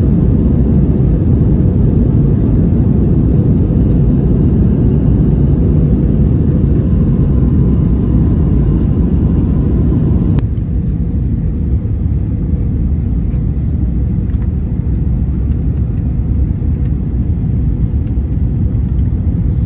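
Steady loud rumble of a jet airliner's engines and airflow heard inside the cabin, with a faint steady hum over it. About ten seconds in it drops abruptly to a slightly quieter rumble.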